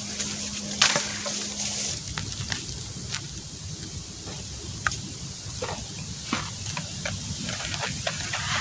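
Wood campfire crackling, with sharp irregular pops and snaps, after a brief loud rustle near the start.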